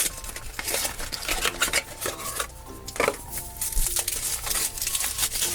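Foil wrapper crinkling and rustling in quick, irregular crackles as it is peeled off a chocolate surprise egg.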